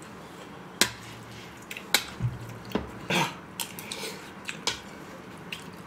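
Chopsticks and spoons clicking against plates and bowls as two people eat: a handful of separate sharp clicks spread over a few seconds, with one short softer scrape about three seconds in.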